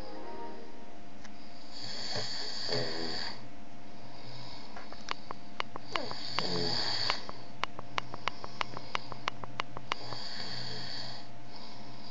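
A man snoring in slow, recurring breaths about every four seconds over a steady low hum. A quick, even run of sharp clicks, about three a second, comes in the middle.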